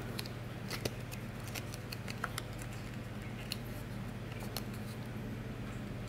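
Foil-coated paper nail forms crinkling and crackling as they are handled and bent in the fingers, in many small scattered crackles.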